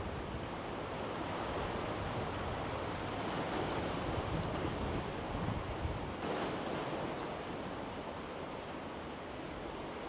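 Steady wash of sea surf, an even rushing noise with no distinct events.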